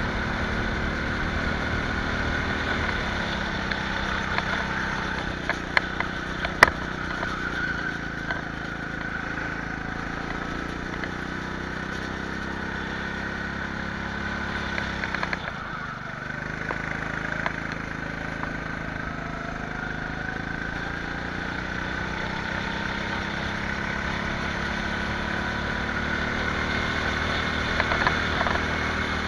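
Go-kart engine running continuously at speed, its pitch rising and falling gently. A few sharp knocks come about six to seven seconds in, and the engine sound dips briefly about halfway through.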